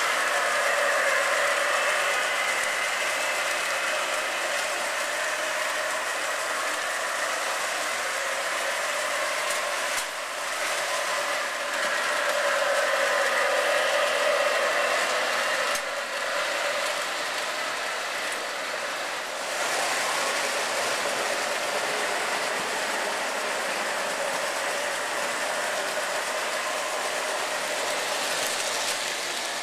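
O-gauge three-rail model trains running: a steady clatter of wheels on the track with electric motor and gear whine that wavers in pitch. The sound shifts abruptly a few times.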